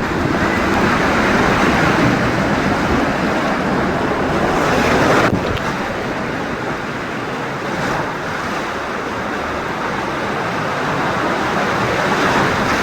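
Rushing, splashing water of a water-park river rapids ride, with wind on the microphone; a little louder for the first five seconds, easing off slightly after that.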